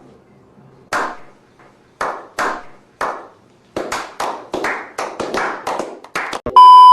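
Hand claps: four slow ones, then about a dozen quicker ones speeding up. Near the end a loud, steady beep tone cuts in.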